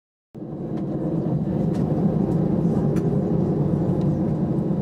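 Airbus A320 jet engines running at taxi power, heard from inside the cabin: a steady low rumble with a few faint clicks. It cuts in from silence just after the start and swells over the first second.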